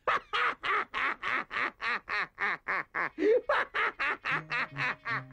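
A cartoon bird character laughing, a long unbroken run of about twenty short 'ha' syllables at roughly four a second.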